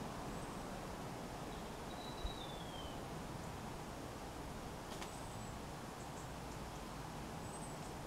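Wind rustling garden leaves as a steady hiss, with a few thin, high bird whistles: a longer call about two seconds in that slides downward, and short high notes near the middle and near the end. A brief low thump sounds about two seconds in.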